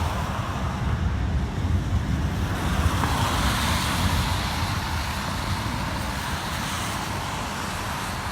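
Steady road traffic on wet pavement: tyre hiss over a low engine rumble.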